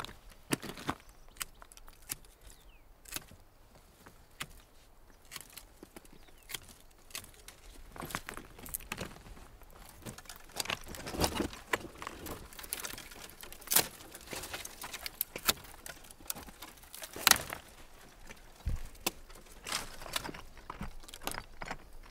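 Grapevines being hand-pruned: irregular sharp snips of pruning shears cutting old vine wood, with the rustle and crackle of dry cut canes and crunching steps on loose lava stone.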